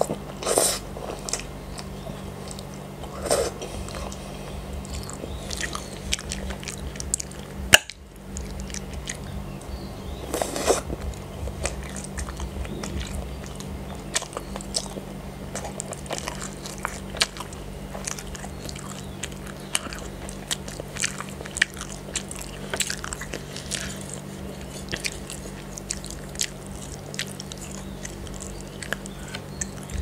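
Close-miked chewing of cheesy spaghetti in tomato sauce with sausage: wet mouth smacks and clicks, with a few louder slurps of noodles. There is one sharp click about eight seconds in.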